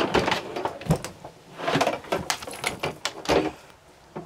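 Irregular knocks, clunks and scrapes of tack-room equipment being moved and put away in a small room, with no speech.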